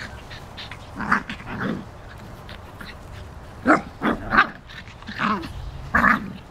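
Small dogs, a Yorkshire terrier and Shih Tzus, barking in short play barks as they wrestle and chase: a couple about a second in, then a quick run of them from about halfway.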